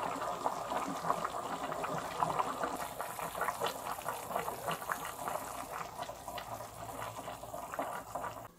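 Beef bulalo broth simmering in a stainless steel stockpot: a steady run of many small, irregular bubbling pops.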